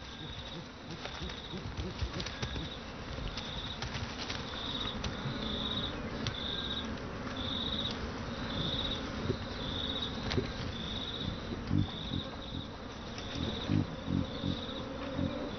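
Insect calling in short, high, buzzy pulses about once a second, over a rustling background, with a few low thuds near the end.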